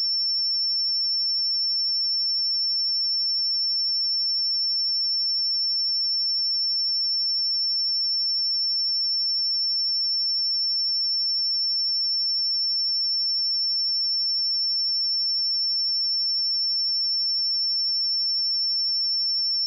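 A steady, unbroken 5406 Hz pure sine tone, a high-pitched test tone for checking speakers and headphones.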